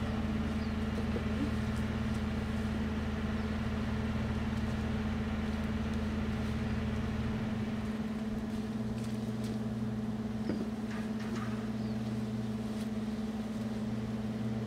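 Steady low hum of an idling engine; its deepest rumble drops away about halfway through, and a single faint click sounds about ten seconds in.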